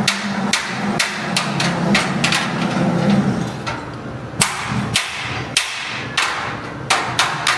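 Blacksmith's hand hammer striking iron on an anvil: a run of sharp, irregular blows that pause briefly in the middle and come again in quick clusters near the end. A steady low hum runs underneath and stops about three seconds in.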